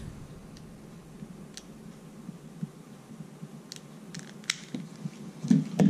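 A few scattered light clicks over a quiet room, from a long-neck utility lighter being handled as it lights a birthday candle.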